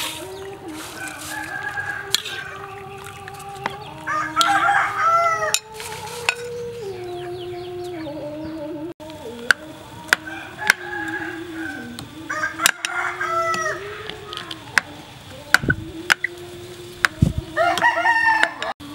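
Chickens clucking while a rooster crows three times, with sharp clinks of a metal spoon against a ceramic bowl.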